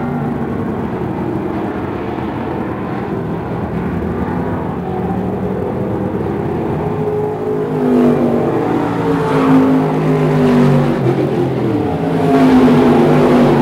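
Several IMCA dirt-track stock cars' V8 engines racing around the oval, their pitch rising and falling as they go through the turns. The sound swells as cars pass close, about eight seconds in and again near the end.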